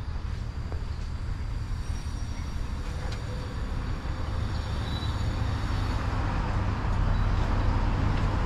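Steady low rumble of street ambience, growing louder over the last couple of seconds as traffic noise builds.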